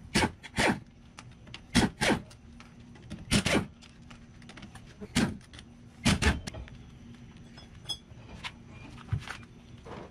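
Impact wrench run in short bursts, often two close together, spinning off the axle flange nuts of a Dana 60 rear axle so the axle shaft can be pulled.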